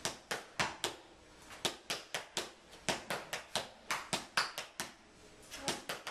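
Tap shoes striking a wooden board in an uneven rhythm: sharp taps about three to four a second, with two short pauses.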